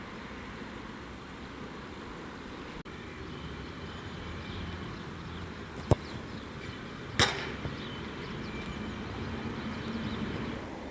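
A football kicked hard with a boot: one sharp, loud strike about six seconds in, then a second hit with a brief rattle a little over a second later as the ball reaches the goal end. Steady outdoor background noise throughout.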